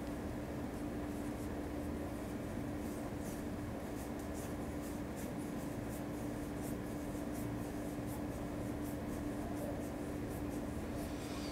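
Quiet room tone with a steady low hum, and faint irregular scratching ticks through most of it.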